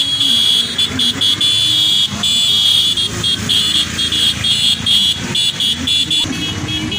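Motorcycles running in a street, with a repeated high-pitched beeping in short pulses.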